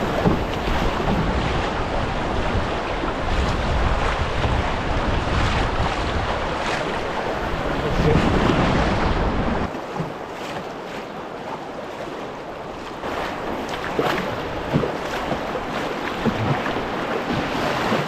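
Rushing river water with wind buffeting the microphone; the low wind rumble drops away about ten seconds in, leaving the rushing water.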